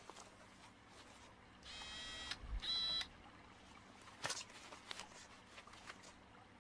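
A faint electronic buzzing tone in two short bursts, about two seconds in, with a dull thud between them, followed by a few faint clicks.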